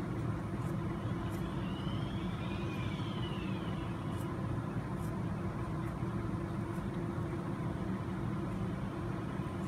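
A steady low hum of background room noise, with a few faint light clicks from angled body scissors snipping a foam tire insert.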